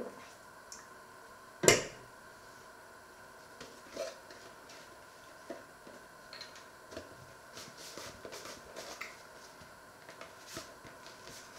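One sharp knock about two seconds in, then scattered light clicks and taps over a faint steady hum.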